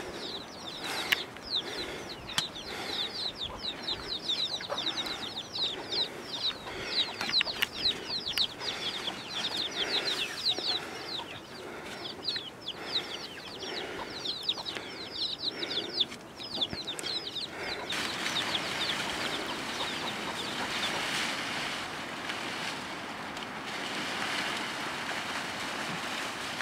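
Chickens calling: a rapid stream of short, high, falling chirps over lower clucking. About two-thirds of the way in the chirping stops suddenly and a steady rustling hiss takes over.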